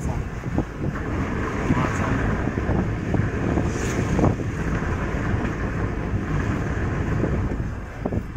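A car driving along a road, heard from inside the cabin: steady engine and road noise.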